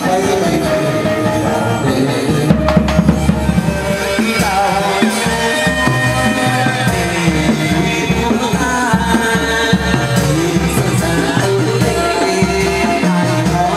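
Chầu văn ritual music: plucked strings over a steady drum beat, with some singing.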